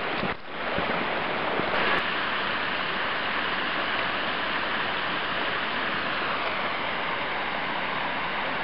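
A brook's water rushing steadily.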